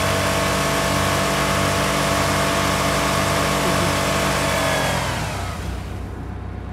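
Jeep Liberty engine held at high revs during a burnout, wheels spinning in snow, a steady loud drone. About five seconds in, the revs fall away and the engine sinks to a low, rough hum, which the driver thinks has stalled.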